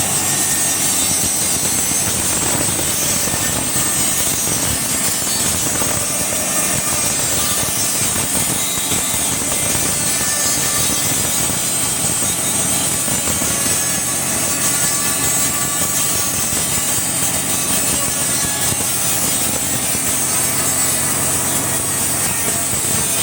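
A powered sawmill saw running steadily as it cuts a sonokeling (East Indian rosewood) log: a continuous, even machine noise with a steady hum underneath.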